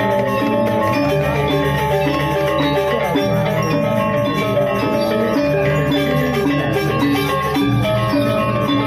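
Balinese gamelan playing steadily and loudly: metallophones ringing many sustained tones together, with drums.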